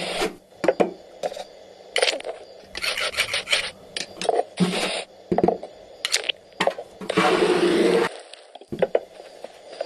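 Foley sound effects played live on a drum kit and hand props to match a cartoon: a string of sharp hits and clicks mixed with short hissing, scraping bursts like cymbal or shaker washes, with a quick flurry about three seconds in and a longer rushing burst of about a second near the end.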